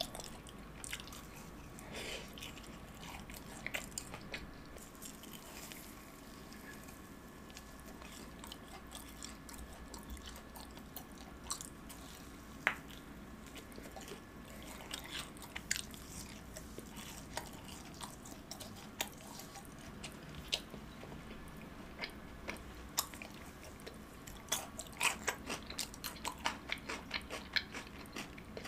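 Close-up chewing of fried cheese balls: soft wet mouth clicks scattered through, thickening into a quick run of chewing clicks near the end.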